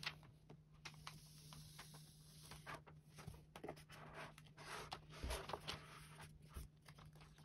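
Plastic applicator card rubbing and scraping across a paper-like screen protector film on an iPad's screen, pressing the film down to push out air, with many small ticks and crinkles from the plastic sheet.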